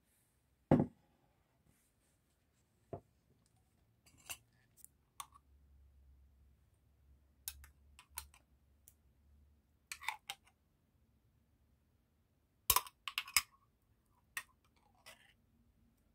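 A heavy glass salad bowl set down with a single loud knock, then scattered light clicks and clinks of a metal spoon against a small glass bowl as mayonnaise is spooned into it, with a quick cluster of taps about three-quarters of the way through.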